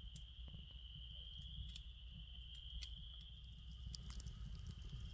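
Faint, steady high-pitched chirring, like an insect chorus, over a low rumble, with a few faint scattered clicks.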